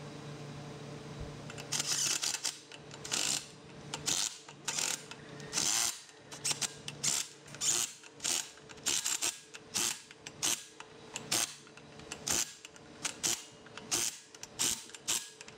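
Hand ratchet clicking in short repeated strokes, about one and a half a second, starting about a second and a half in, as flywheel bolts are run down by hand rather than with an impact gun.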